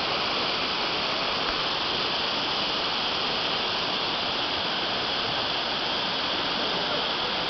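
Swift river water rushing in a steady, even hiss.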